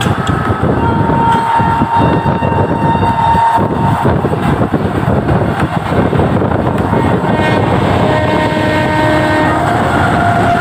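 Loud rumble and clatter of a moving ICF passenger coach, heard at its open door, while a WAP-7 electric locomotive hauling an LHB train comes up alongside on the next track. A locomotive horn holds one steady note from about a second in for nearly three seconds. A fainter horn sounds again near the end as the locomotive draws level.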